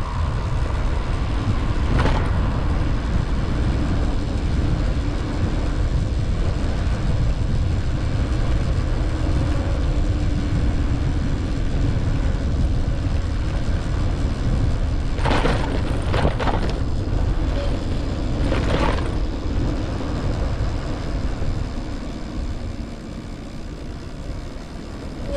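Heavy wind rumble on the microphone of a camera moving fast along an asphalt road, mixed with road noise. A few sharp clattering knocks come about two-thirds of the way in, and the rumble eases near the end.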